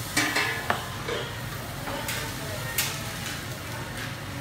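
Fried rice sizzling in a drum-shaped wok, with a metal utensil clattering and knocking against the wok, sharp knocks about half a second in and again near three seconds, over a steady low kitchen hum.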